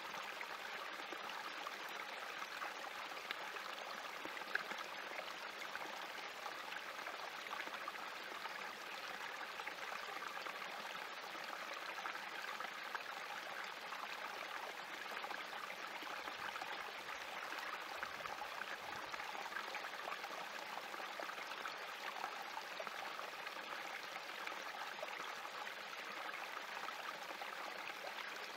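Small spring-fed creek trickling and splashing over rocks in a steady, even babble.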